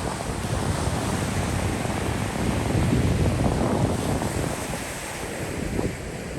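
Sea waves breaking and washing on the shore, swelling a little about halfway through, with wind buffeting the microphone.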